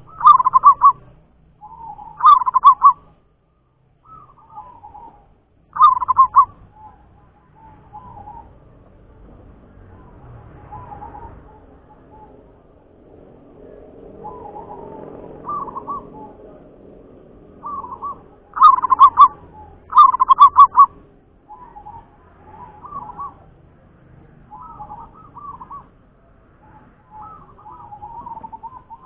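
Zebra dove (perkutut) cooing: rolling, rapidly pulsed coos. Loud phrases come at the start and about two, six, nineteen and twenty seconds in, with softer, shorter coos in between.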